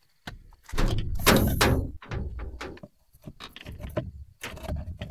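A run of knocks and scraping rustles from things being handled and moved, the loudest a rough scrape about a second in.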